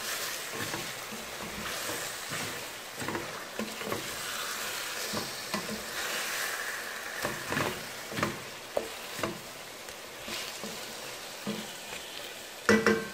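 Chicken pieces frying in ghee with garlic and ginger over fairly high heat in a stainless-steel pot, sizzling steadily while a wooden spoon stirs them, scraping and knocking against the pot now and then. A louder knock comes near the end.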